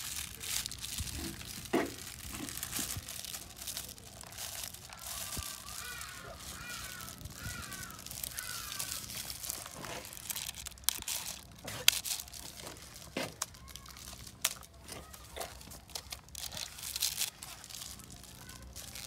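Thin polythene sheet crinkling and crackling as it is pulled taut over a bucket and pressed down under a rubber ring, with many sharp plastic snaps and rustles.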